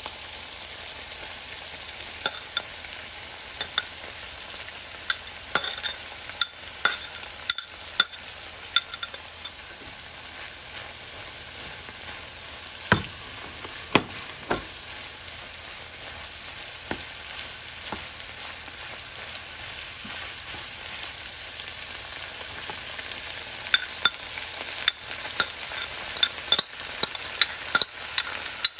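Vegetables and egg sizzling steadily in a frying pan as cooked white rice is added, with scattered sharp clicks and knocks of a metal utensil against the glass rice bowl and the pan, two of the loudest around the middle and several more near the end.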